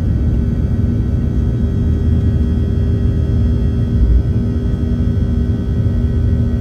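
Boeing 737 cabin noise: the jet engines and airflow make a steady low rumble with a constant hum over it.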